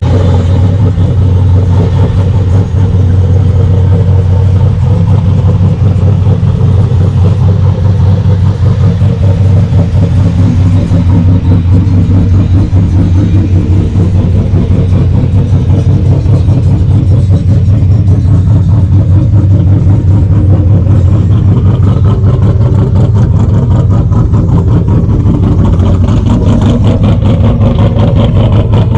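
Turbocharged truck engine running loudly and steadily, with a newly fitted air filter on the turbo intake.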